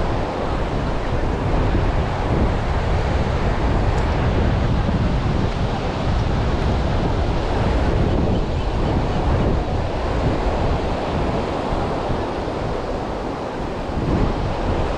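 Ocean surf breaking and washing ashore in a steady rush, with wind buffeting the microphone.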